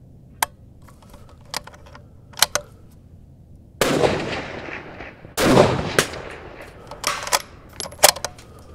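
Two rifle shots about a second and a half apart, each ringing out for about a second, with sharp clicks before and after.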